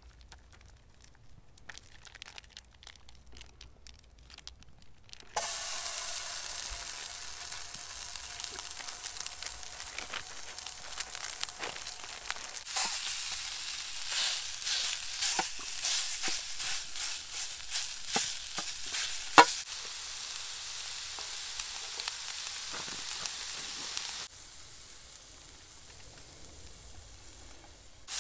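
Ground meat sizzling in a hot titanium non-stick skillet over a small wood-burning stove. The sizzle starts abruptly about five seconds in. In the middle a wooden stick scrapes and knocks against the pan as it breaks up the meat. The sound drops away sharply a few seconds before the end.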